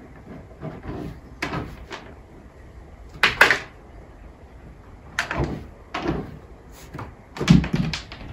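A series of irregular knocks and clatters, about eight in all, the loudest about three seconds in and near the end.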